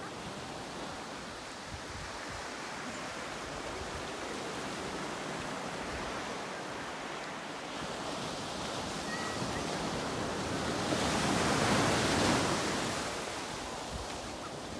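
Ocean surf washing up a beach: a steady rush of breaking waves that swells to a louder wash about three quarters of the way through.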